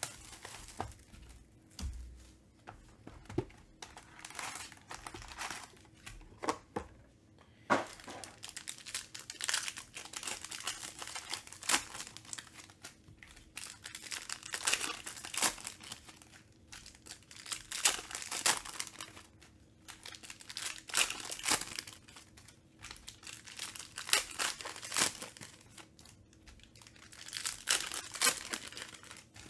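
Trading-card pack wrappers of crinkly foil being torn open and handled, in repeated crackling bursts with sharp clicks. There are only a few scattered clicks in the first seconds.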